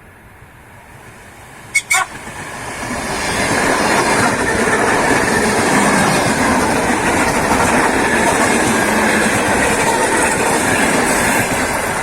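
Two very short, loud horn toots, then a train running close past with wheels clicking over rail joints. The noise builds over a couple of seconds, stays loud and eases slightly near the end.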